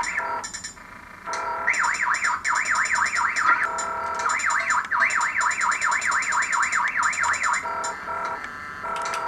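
Circuit-bent Casio SK-1 keyboard making glitchy electronic noise as a probe shorts points on its circuit board. A steady buzzing drone of several pitches is joined twice by a fast warble that sweeps up and down about four times a second, over rapid high clicking.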